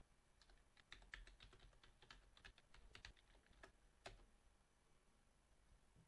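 Faint clicking of computer keyboard keys, a quick irregular run of keystrokes that stops about four seconds in.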